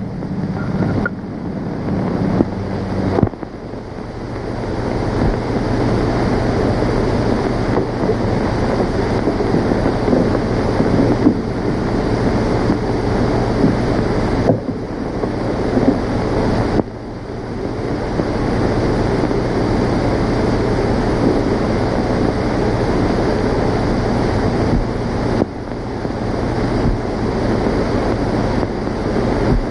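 Old optical film soundtrack noise: a steady hiss with a low hum underneath, dipping briefly at a few points where the shot changes.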